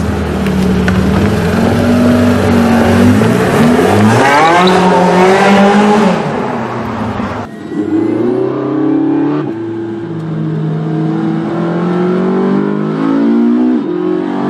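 Porsche 918 Spyder's V8 engine accelerating hard, its note climbing steeply in pitch. About halfway the sound cuts abruptly, then the engine pulls again, its pitch rising in steps.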